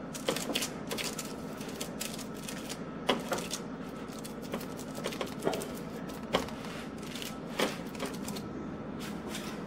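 Hands patting and pressing a moist ground-meat, egg-white and oatmeal meatloaf mixture into a foil-lined baking pan: irregular soft pats and taps, one or two a second, over a steady low hum.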